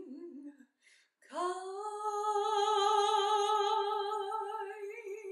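A woman singing alone: a short phrase tails off, then about a second in she starts one long held note with vibrato and sustains it for about four seconds.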